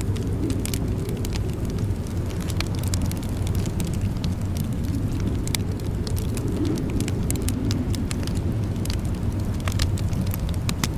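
Fire burning in a fireplace: a steady low rushing with frequent sharp crackles and pops scattered through it.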